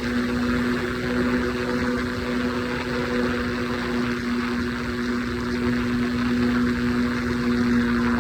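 Triumph Scrambler 400X motorcycle's single-cylinder engine running at a steady cruising speed, its note holding an even pitch, over a constant rush of wind and road noise.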